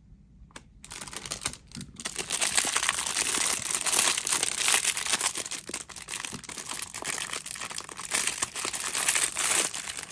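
Thin clear plastic poly bags crinkling with many small crackles as hands rummage in them and pull one open. It starts after about half a second and gets louder about two seconds in.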